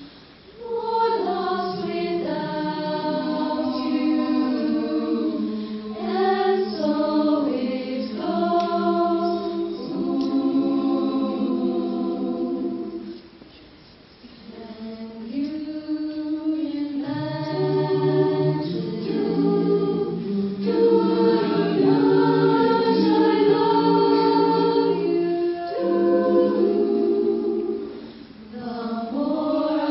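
Mixed-voice jazz choir singing a cappella into handheld microphones, holding close chords in long phrases with short breaks between them, about a second in, midway and near the end. A low bass part comes in just past the middle.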